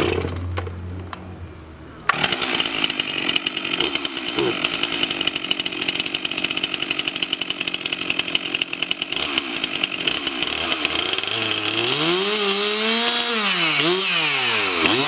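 Stihl two-stroke chainsaw, just pull-started, running with a low steady hum, then suddenly throttled up to high revs about two seconds in. It stays loud and rasping, and near the end a pitched tone swings up and down twice.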